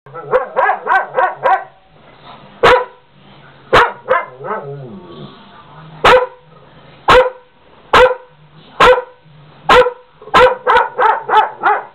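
Large dog barking: a quick string of about six barks, then single barks roughly a second apart, then another quick string near the end.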